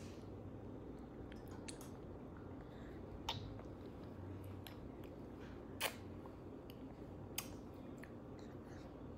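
A 12-month-old baby chewing and mouthing finger food, with quiet mouth sounds and a few sharp smacks or clicks, the loudest about six seconds in, over a steady low room hum.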